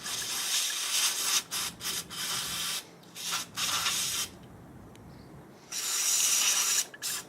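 An aerosol can of electric motor cleaner spraying in repeated hissing bursts, some about a second long and others short, into a brushed Titan 12-turn 550 RC motor. It is flushing out the dust and grime thought to cause the motor's squealing.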